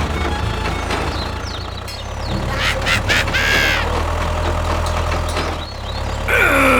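A small motor runs with a steady low hum. A brief, high, wavering call sounds about three and a half seconds in, and a falling, cry-like call comes near the end.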